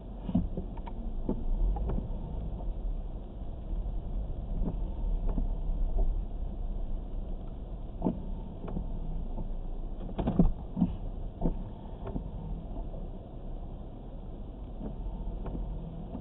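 Car driving on a wet road, heard from inside the cabin: a steady low rumble of engine and tyres, with a few short clicks and knocks, the loudest cluster about ten seconds in.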